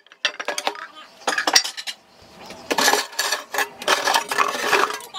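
Irregular clinking and clattering of dishes and cutlery being handled, in several short bursts.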